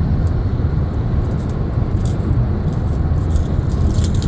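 Steady low rumble of road noise inside a moving car, with light metallic jingling and clicks in the middle.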